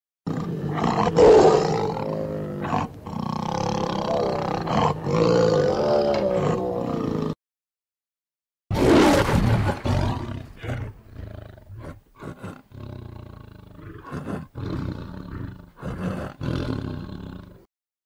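Tiger roaring and growling in two bouts. First a long, wavering growl-roar of about seven seconds, then after a short break a loud roar that trails off into shorter, broken growls.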